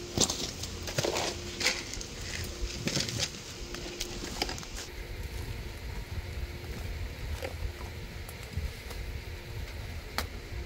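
Irregular rustling and crackling clicks, thick for the first few seconds and then sparse over a low steady rumble, with a single sharp click near the end.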